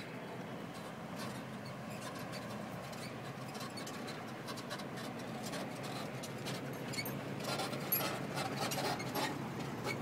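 Puppy making squeaky whimpers, with rustling and crackling of brushy branches that grows busier about seven seconds in.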